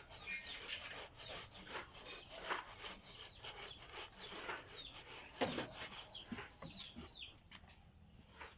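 Sand being sifted through a screen by hand to separate out the stones: irregular scraping and rasping with scattered knocks, thinning out toward the end.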